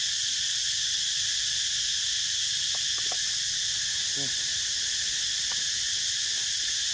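Steady insect chorus, a continuous high drone that does not change, with a few faint short clicks about three seconds in and a brief faint voice-like sound a second later.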